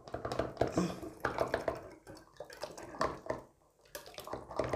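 Thick, pulpy kiwi purée poured from a glass into a plastic funnel, glugging and splashing in irregular wet pulses, with a short lull about three and a half seconds in.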